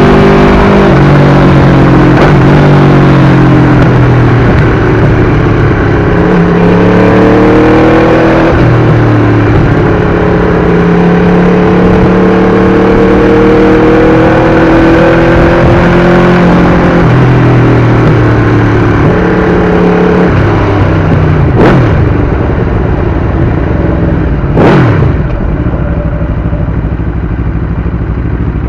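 Aprilia RSV4 V4 engine through an SC-Project exhaust, riding under load: the pitch climbs in long pulls and drops at each gear change, then runs lower near the end. Two short whooshes cut across it near the end.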